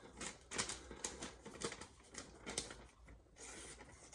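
A deliberately blunted santoku blade crumpling and tearing a sheet of paper instead of slicing it, in short irregular crackles: the sign that the edge is dull.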